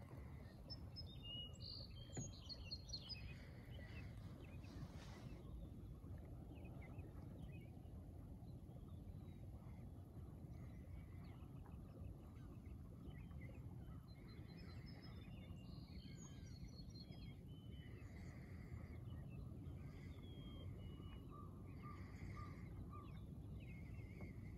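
Faint birdsong: several birds chirping and calling, with a cluster of chirps in the first few seconds and more calls through the second half, over a low, steady outdoor background rumble.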